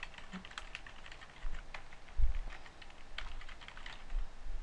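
Typing on a computer keyboard: a quick, irregular run of key clicks, with a dull low thump about two seconds in.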